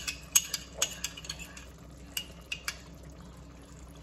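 Spoon clinking and scraping against a small ceramic ramekin as cornstarch slurry is poured into a pan: a run of sharp clinks over the first two to three seconds, then it goes quiet.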